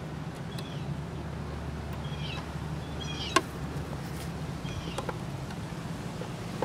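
A bird chirping in short calls about four times, over a steady low hum, with a few small clicks as wires are pushed into the timer's terminal block; the sharpest click comes a little over three seconds in.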